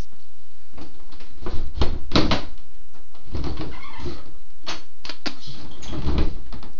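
Thumps, scrapes and rattling on a bathroom door, coming in irregular clusters, as a pit bull paws at it from the other side trying to get it open.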